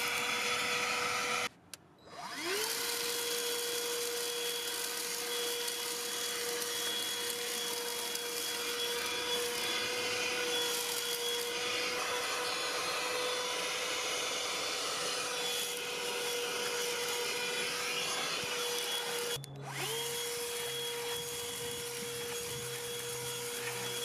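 Black+Decker 20-volt Max Lithium pivot handheld vacuum running steadily with a whining motor while sucking up debris. It cuts out about a second and a half in and spins back up to full speed; near the end its pitch sags briefly and recovers.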